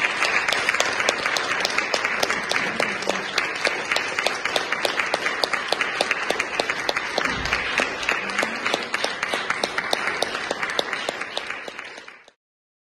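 Audience applauding, with one clapper close by standing out as sharp, regular claps; the applause fades out and stops near the end.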